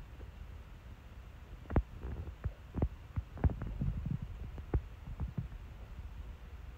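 Low steady hum with irregular soft taps and thumps, the sharpest about two and three and a half seconds in. No bird calls.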